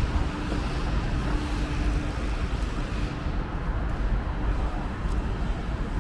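Steady low rumble of motor vehicle noise, even and unbroken, with a faint steady hum in the first couple of seconds.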